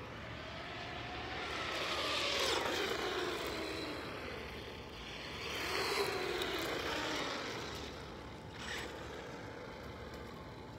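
Traxxas Stampede 4x4 brushless electric RC monster truck driving fast across asphalt. Its motor and drivetrain whine rises and falls in pitch over the rush of its tyres, loudest as it passes about two and a half seconds in and again about six seconds in.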